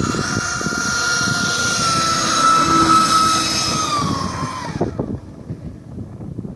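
The 120 mm electric ducted fan of a Mirage 2000 model jet whining steadily as it taxis, a high whine with overtones over a rushing hiss. Near the end the whine dips in pitch and stops about five seconds in.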